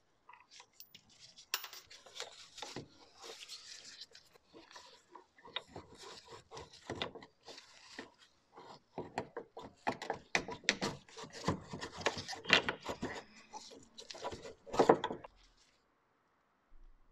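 Irregular scraping, rubbing and clicking of a screwdriver, metal bracket and plastic fuel filter as a Volkswagen Golf Mk5 fuel filter is unscrewed and worked loose; the clicks come thickest in the second half.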